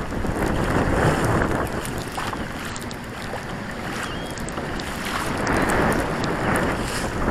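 Wind buffeting the microphone in gusts, with choppy water splashing against the hull of a Hobie Pro Angler kayak as it is pedalled through rough water.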